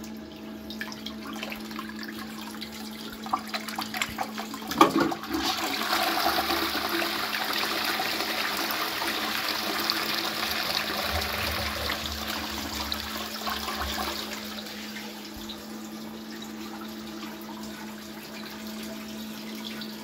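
Qualitas Versailles close-coupled toilet with a Fluidmaster Pro dual-flush siphon being flushed by its lever. A clunk about five seconds in, then a rush of water into the pan for about nine seconds, easing to a quieter steady run of water as the cistern refills.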